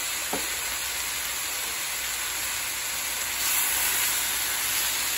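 Vegetables and diced chicken sizzling in a hot skillet over medium-high heat: a steady hiss that gets a little louder about three and a half seconds in, while a wooden spoon stirs them.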